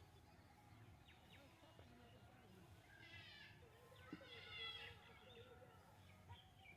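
Kittens mewing faintly: two high-pitched calls, about three seconds in and again about four seconds in, each under a second long.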